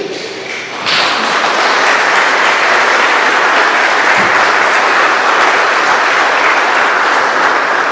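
Congregation applauding, with the priest clapping along; the applause breaks out about a second in and then holds steady and dense.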